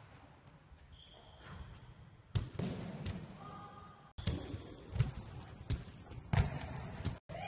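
Sharp thuds of a ball bouncing and feet landing on a sports-hall floor, about one a second from a couple of seconds in, with a few short high squeaks in the first half.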